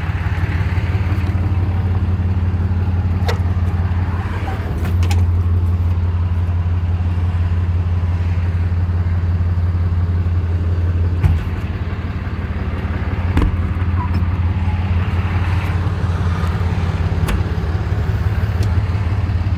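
Dodge service truck's engine idling steadily, with a few light clicks and knocks. The idle rises a little about five seconds in, then drops briefly after about eleven seconds before settling back.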